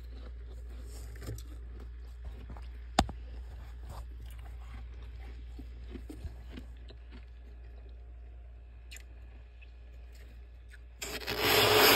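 A spoon scraping through thick, fluffy freezer frost: faint crackly crunches and scratches with a sharp click about three seconds in, then a loud, long scrape near the end. A steady low hum runs underneath.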